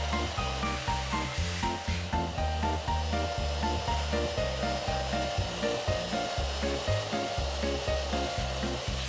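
Background music with a steady bass line and a quick melody of short notes.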